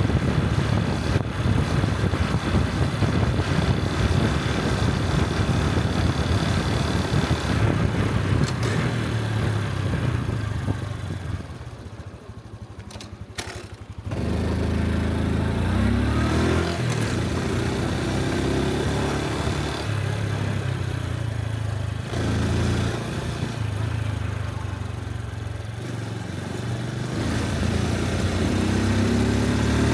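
Honda Cub 125 motorcycle's single-cylinder engine running under way. It eases off to a quieter stretch about eleven seconds in, then picks up again with rising pitch as the bike accelerates, and climbs once more near the end.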